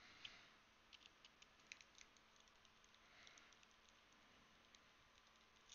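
Faint small clicks and taps from handling a small keyboard case and a precision screwdriver, with a cluster of quick clicks in the first two seconds and a couple of soft brushing swishes.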